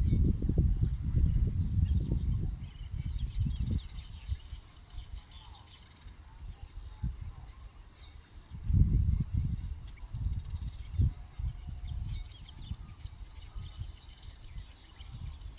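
Steady, evenly pulsed high-pitched insect chirping, with low gusts of wind buffeting the microphone, heaviest in the first few seconds and again about nine seconds in.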